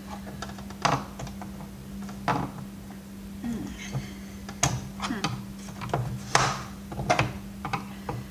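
Irregular clicks, knocks and creaks of the vacuum cleaner's hard plastic housing being handled and pried at, some sharper than others, over a steady low hum.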